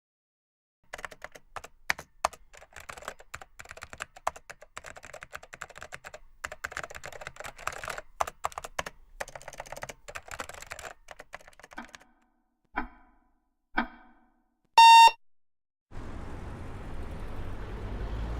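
Rapid typing on a computer keyboard, dense irregular key clicks for about eleven seconds. Then two short knocks about a second apart, one loud electronic beep, and a steady noise that comes in near the end.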